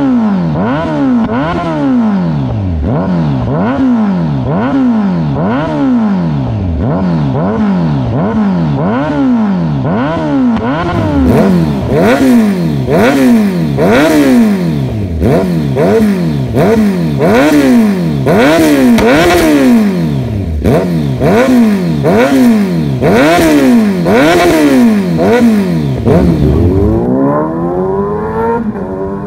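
Kawasaki Z900 SE's inline-four engine breathing through a full aftermarket exhaust with a black bomb muffler, revved in repeated quick throttle blips about once a second, each rev rising and dropping back. Near the end the engine pulls up in one long rising rev.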